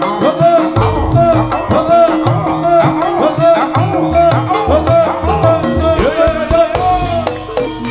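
Live Javanese jaranan gamelan music: a looping melody of quick rising-and-falling notes over a fast, steady drum pattern, with the pattern shifting to a held note near the end.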